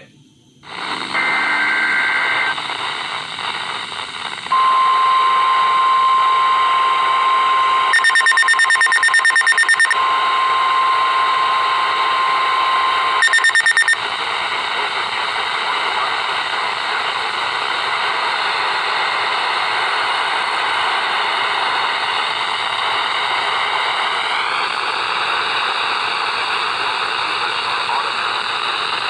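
EAS Required Weekly Test coming over a radio. A short screech of digital header tones about a second in is followed by a steady single-pitched attention tone for about eight seconds. The tone is interrupted twice by rapid electronic alarm beeping, and after it ends there is steady radio hiss.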